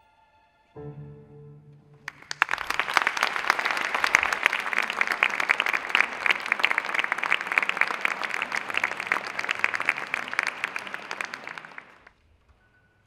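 A youth string orchestra sounds a short, low closing chord about a second in. Audience applause breaks out about two seconds in, holds steady, and dies away near the end.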